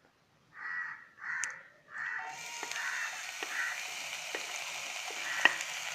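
A crow caws three times in quick succession, then crushed ginger and garlic go into hot coconut oil and sizzle steadily, with light clicks from a spoon in the pan and one sharper knock near the end.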